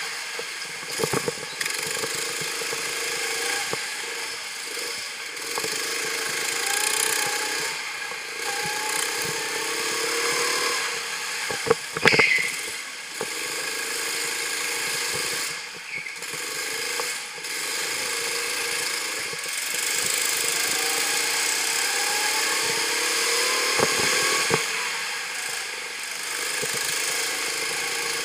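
Go-kart engine heard on board while lapping, its pitch rising and falling repeatedly as the driver accelerates out of corners and lifts off into them. A few sharp knocks cut through, the loudest with a short bright burst about twelve seconds in.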